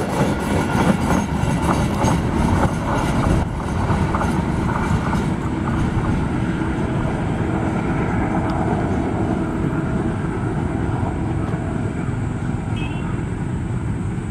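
Freight train's open wagons rolling past on the rails, the wheels clattering in quick strokes for the first few seconds, then settling into a steadier rumble that fades slightly as the end of the train draws away.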